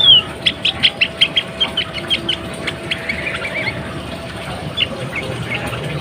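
A female sooty-headed bulbul calling. It gives one falling note, then a quick run of short, sharp high chips, about four or five a second for two seconds, then a brief chatter and a few scattered single notes.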